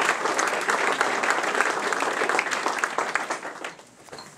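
Audience applauding, a dense patter of many hands clapping that dies away about three and a half seconds in.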